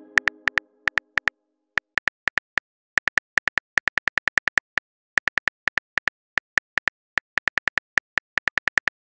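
Smartphone keyboard typing clicks: short, sharp ticks in quick, uneven runs of several a second with brief pauses, the sound of a text message being typed. The tail of a message chime fades out just at the start.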